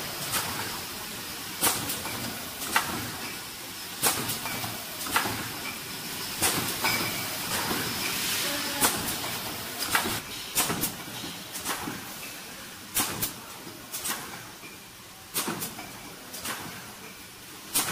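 Fully automatic servo-driven bottle screen printing machine running: sharp clacks from its moving parts about once a second, unevenly spaced and sometimes in quick pairs, over a steady hiss.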